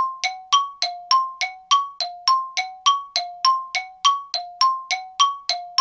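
Background music of quick, evenly spaced bell-like dings, about three and a half a second, with the tune swapping back and forth between two notes.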